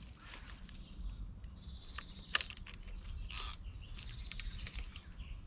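Someone moving through dense riverside undergrowth: scattered crackles and rustles of leaves and twigs, a sharp snap about two and a half seconds in and a short swish about a second later, over a low rumble of handling and wind.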